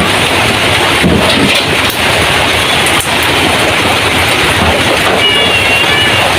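Heavy rain on a zinc roof, a loud steady rush of noise.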